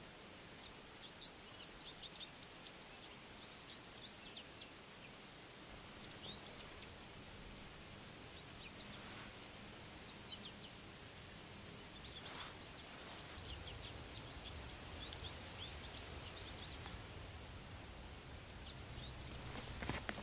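Quiet woodland ambience: small birds chirping and calling in scattered bursts over a soft steady hiss. A low steady rumble joins about two-thirds of the way in.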